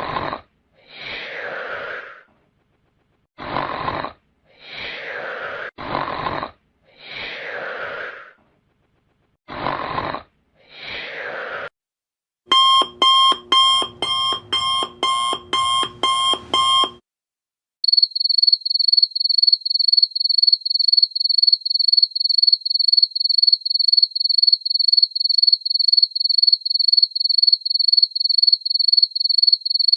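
A run of comedy sound effects. First come eight short hissing sounds, each about a second long. Next, a pitched ringing repeats about twice a second for some four seconds. Last, a high electronic alarm-clock beep pulses about two to three times a second.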